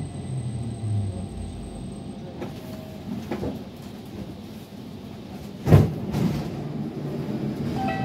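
Stockholm metro train slowing to a stop at a station platform: its motor hum falls in pitch and fades, a high thin whine cuts off about two seconds in, and a single loud clunk comes near the end.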